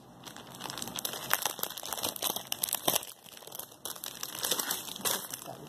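Clear plastic wrapping crinkling and rustling as packs of scrapbook paper are handled and moved in a cardboard box, irregular crackles with a few sharper snaps.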